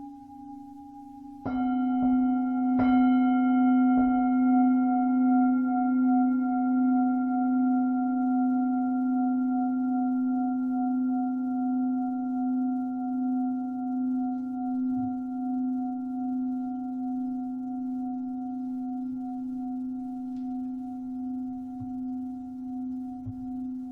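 Lingam singing bowl struck three times in quick succession about a second and a half in, the last stroke lightest, then ringing on with a deep low tone and higher overtones. The ring fades slowly with a steady wavering pulse of beats.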